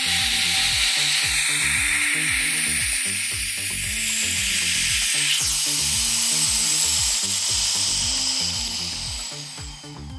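Air hissing as it rushes back into a vacuum chamber to bring it back to atmospheric pressure; the hiss holds steady, then tapers off about three-quarters of the way through as the pressure equalises. Background music plays underneath.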